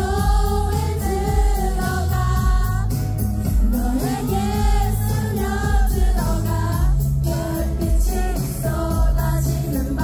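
K-pop song performed on a concert stage: female voices singing held melodic lines over a backing track with a steady pulsing bass, heard over the hall's sound system.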